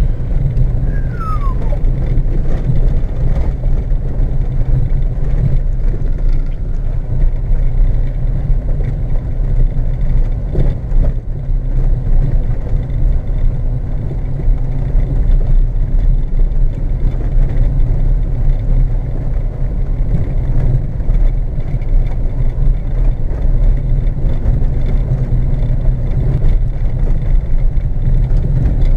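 Fiat Tipo 1.9 turbodiesel driving on a snow-covered road, heard from inside the cabin: a steady low engine and road rumble. A brief falling whistle comes about a second in.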